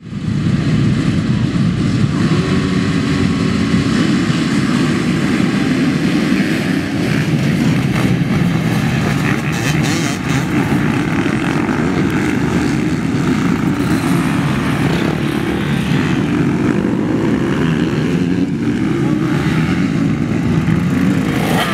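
Several motocross motorcycle engines revving hard together as the bikes race past, a loud continuous overlapping engine noise.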